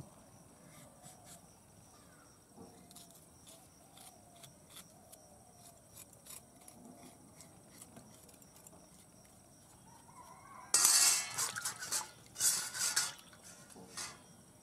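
A steel spoon scraping and clattering against a stainless-steel bowl for about two seconds, starting about eleven seconds in, with a smaller clink near the end. Before it, hens cluck faintly in the background.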